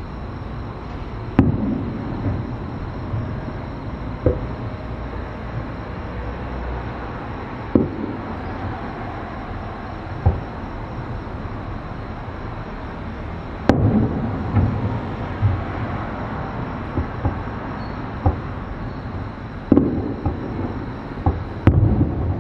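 Distant aerial fireworks bursting: sharp booms every few seconds at uneven spacing, each trailing off in a rolling echo, over a steady low background noise. The loudest bangs come about fourteen seconds in and again near the end.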